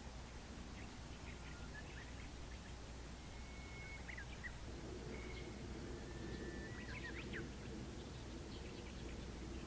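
Small birds chirping and whistling in short, scattered notes and a few level whistles, over a steady low outdoor rumble; a low steady hum joins about halfway through.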